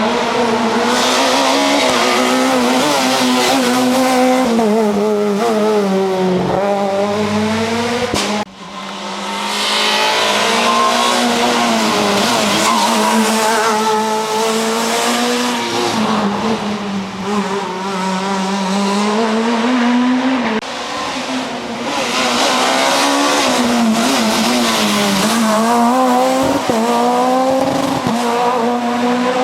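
Ford Fiesta RS WRC's turbocharged 1.6-litre four-cylinder rally engine running hard, its note climbing and falling again and again through gear changes and braking, with tyre noise on the stage. The sound cuts out briefly about eight seconds in.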